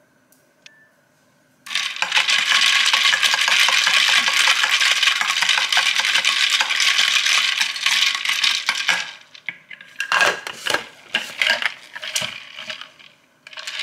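A metal straw stirring a drink in a plastic cold cup, a fast run of clinking and rattling for about seven seconds, then a few scattered clicks and knocks as the cup is handled and lidded.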